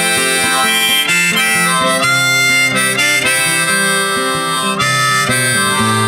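Background music: an instrumental break in a song, a harmonica melody over acoustic guitar.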